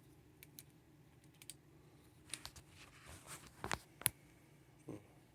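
Small plastic-and-metal clicks and taps from handling a ThruNite Saber flashlight while its caps are screwed tight, a few faint at first, then louder, with the sharpest click about four seconds in.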